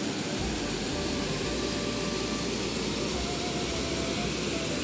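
Waterfall: water pouring over a rock ledge and crashing into the gorge below, a steady, even rushing.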